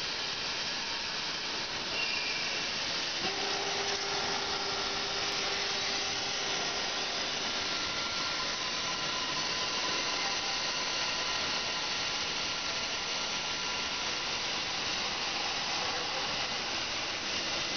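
Aluminum cookware interior sanding machine at work: an abrasive belt running against the inside of a spinning aluminum pot, a steady hiss with faint whining tones from the machine's electric motor and drive.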